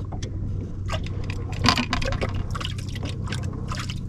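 Small wind-driven waves lapping and slapping irregularly against the boat's hull, over a steady low hum.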